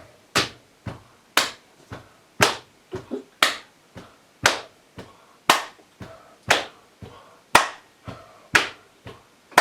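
Body percussion: a steady, even rhythm of sharp hand claps and slaps with softer foot and thigh hits between them, a loud clap landing about once a second.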